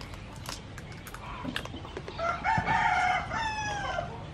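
A rooster crowing once: a drawn-out call of about two seconds that drops in pitch at the end. It is preceded by a few light clicks.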